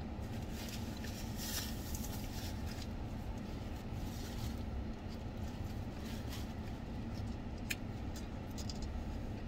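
Steady low hum of a car running, heard inside its cabin, with faint scattered clicks and rustles of chewing and a paper napkin being handled.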